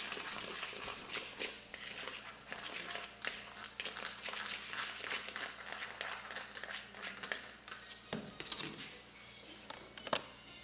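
Hand-soap and salt slime being stirred in a container: a busy run of irregular wet clicks and squishes as the utensil works the mixture while it thickens.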